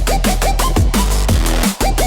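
Electronic music in a drum-and-bass style: fast, dense drum hits over a sustained bass, with short bass notes that slide down in pitch. About three-quarters of a second before the end the music drops out for an instant.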